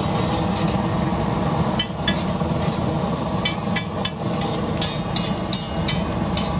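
Metal utensils clinking and tapping against steel cookware at a street-food stall: irregular sharp taps, some ringing briefly, and thickest in the middle of the stretch. Under them runs a steady low rumble.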